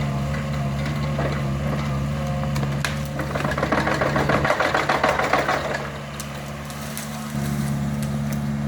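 Excavator's diesel engine running steadily. About three seconds in, a louder, rough rattling stretch lasts a couple of seconds as the machine works, and then the engine note drops and quietens for a moment before returning.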